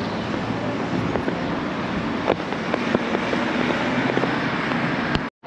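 Steady city-street ambience: a low hum of traffic with wind on the microphone and a few faint clicks. The sound drops out suddenly for a moment near the end.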